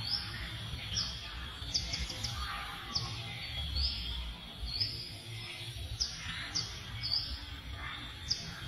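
A bird calling over and over: short, high, upward-sweeping chirps about once a second, over a low steady rumble.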